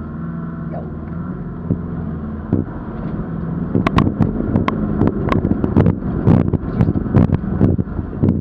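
Off-road 4x4's engine running steadily, heard from inside the cab as it drives into a ford. From about four seconds in, water crashes against the front of the vehicle as it pushes a bow wave through, in a dense run of sharp thumps and splashes lasting about four seconds.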